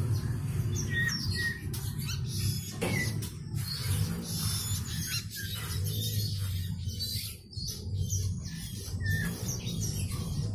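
Young pied fantail (kipasan) giving short, high chirps scattered irregularly, over a low steady hum.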